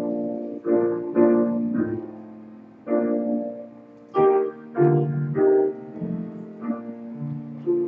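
Piano playing a slow postlude of struck chords, each one sounded and left to fade before the next.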